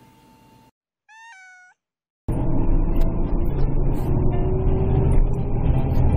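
A short, high meow-like call about a second in. From about two seconds in comes loud, steady road and engine rumble of a moving car, heard from inside the vehicle.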